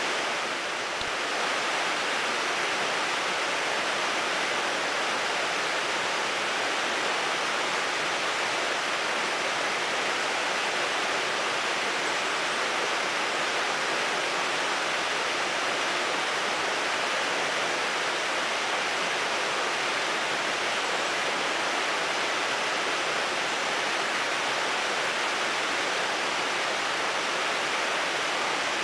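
Shallow river water rushing steadily over rocks and riffles, a continuous even hiss.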